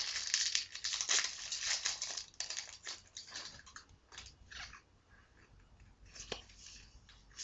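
Crinkling and rustling of a foil trading-card booster pack wrapper and cards being handled. The crinkling is dense for about the first three seconds, then thins to scattered rustles and a single click near the end.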